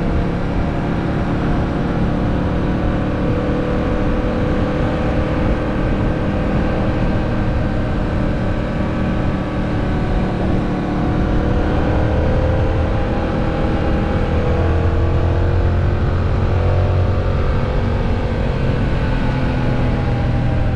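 Yamaha MT-07's 689 cc parallel-twin engine running under way at moderate, fairly steady revs, its pitch drifting slowly up and down as the throttle varies, over a steady rush of noise.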